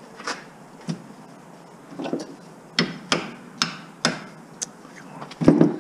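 Hammer blows and metallic knocks on metal door hardware, about eight uneven strikes, some with a short ring, the heaviest one near the end.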